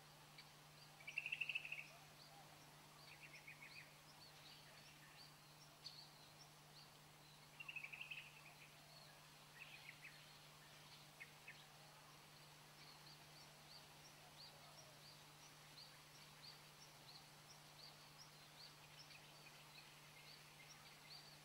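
Faint birdsong: many short high chirps throughout, with two louder trills, one about a second in and one about eight seconds in, over a low steady hum.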